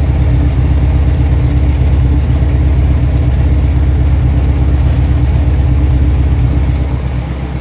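1979 Alfa Romeo Alfetta idling, heard right at the exhaust tailpipe: a steady, even, low burble from an engine running smoothly.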